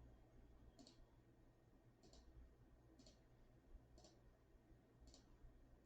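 Faint computer mouse clicks, five of them about a second apart.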